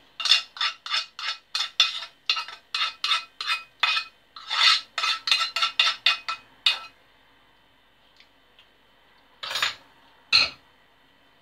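A spoon scraping out the inside of a metal saucepan, about three quick strokes a second with the pan ringing, as the last of the sauce is scraped out. Near the end, two knocks as the saucepan is set back down on the gas hob.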